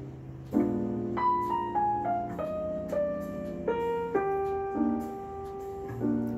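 Background piano music: a chord struck about half a second in, then a slow melody of held single notes stepping mostly downward.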